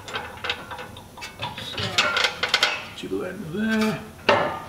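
Powder-coated 4 mm steel compressor guard clinking and knocking against the chassis as it is pushed up and lined up by hand: a run of light metal taps, with a louder clunk near the end.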